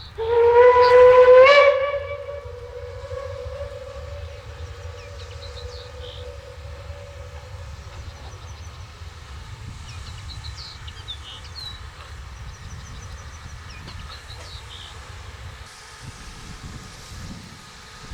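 Steam whistle of the DB class 23 steam locomotive 23 042 giving one loud blast of about two seconds, its pitch rising slightly as it opens. A fainter tone at the same pitch lingers and fades over several seconds, with birds chirping and a steady low rumble underneath.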